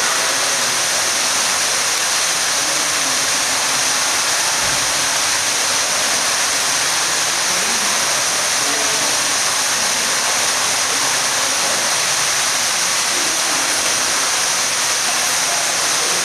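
Steady, loud rushing hiss that does not change throughout.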